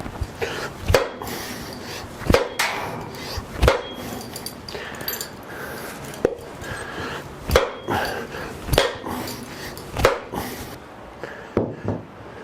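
Hammer blows, about ten at irregular intervals, beating on a piston seized in a rusted cylinder of a 350 Chevy small-block to drive it out.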